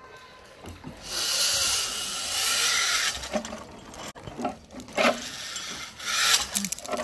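Clothing rubbing and scraping against a chest-worn phone's microphone as the wearer moves on a rope net: loud scraping for about two seconds starting a second in, then scattered knocks and rustles.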